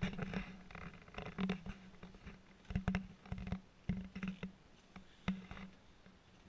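Footsteps on wooden stairs and floorboards, an uneven run of knocks and thuds as someone climbs into a timber attic.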